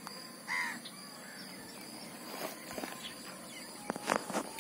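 Outdoor ambience with a steady high-pitched insect drone, a brief call about half a second in, and a few sharp clicks and scrapes near the end as hands pick small fish off dry, cracked mud.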